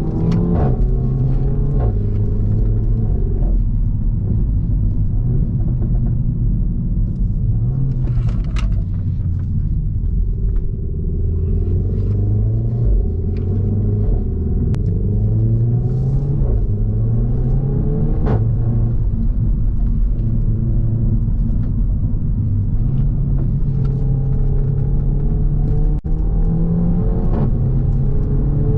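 Renault Mégane 4 RS 280's turbocharged four-cylinder engine pulling hard through a catless exhaust. Its pitch climbs and then drops again at each gear change, several times over, with sharp exhaust pops and cracks scattered throughout.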